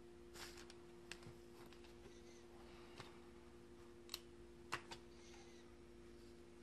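Near silence over a faint steady hum, broken by a few small clicks and taps of hand tools and small objects being picked up and set down on a paper-covered table; the sharpest two come about four and five seconds in.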